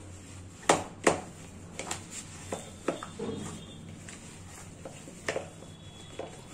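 Hands kneading flour dough in a plastic bowl: the dough pressed and turned against the bowl, giving irregular sharp knocks and slaps, the two loudest close together just under a second in.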